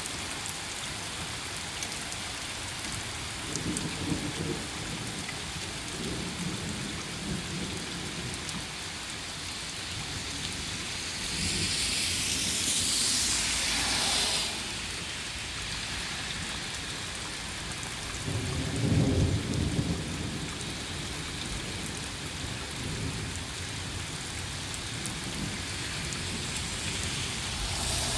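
Steady rain falling on pavement, with low rumbles of thunder about four seconds in and more strongly about two-thirds of the way through. About twelve seconds in, a car passes with a swelling hiss of tyres on the wet road, and another vehicle starts to approach at the very end.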